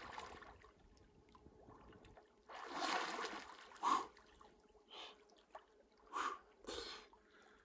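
Lake water splashing in several short bursts as a man bathes in it, with a few short gasping breaths.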